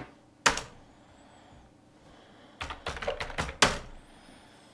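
Computer keyboard keystrokes: a single sharp key press about half a second in, then a quick run of keystrokes a little past halfway that ends in a harder press. This is the Enter key sending a git push command, then an SSH key passphrase being typed and entered.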